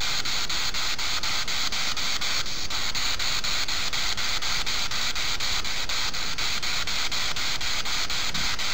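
Spirit box (radio-sweep ghost box) scanning the bands: a steady hiss of radio static broken by regular clicks about five a second as it jumps from station to station, with no voice coming through.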